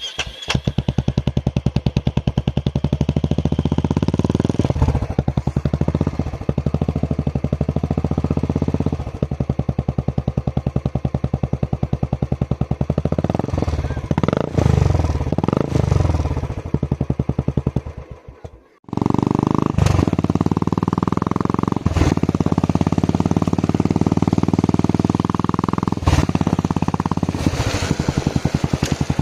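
Royal Enfield BS6 single-cylinder motorcycle engine running at idle with an even, rapid exhaust beat, revved up and back down a few times around the middle. The sound cuts out for a moment just past the middle and resumes idling.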